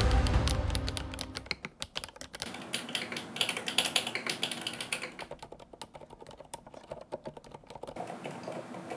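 Typing on a TOMAK65 split mechanical keyboard: a fast, irregular run of key clicks. Background music fades out in the first second or two.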